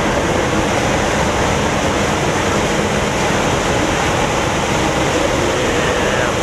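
Semi-truck diesel engines idling, heard as a steady, loud, even noise with no distinct events.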